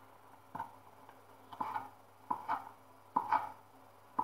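Knife slicing green olives into rings on a cutting board: a run of short taps as the blade meets the board, about five cuts, several coming in quick pairs.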